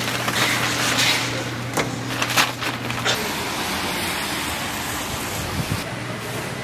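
Rustling and clatter of fried chicken gizzards being tipped from a wire strainer into a paper bag, over a steady hiss. After about three seconds the clatter and a low hum stop, and only a steady even hiss remains.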